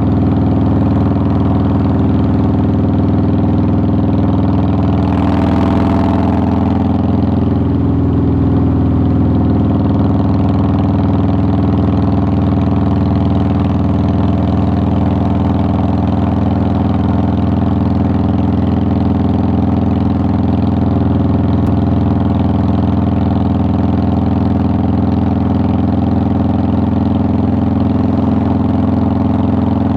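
2009 Harley-Davidson Softail Deluxe's air-cooled Twin Cam 96 V-twin running at a steady, unchanging engine speed. A brief rush of hiss rises over it about five seconds in.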